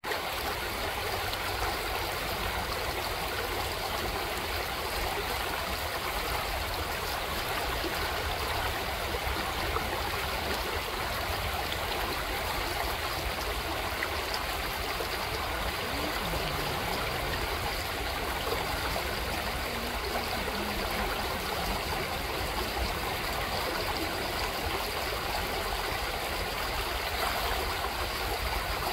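Shallow creek running over cobbles and a small riffle, a steady rushing and gurgling of water.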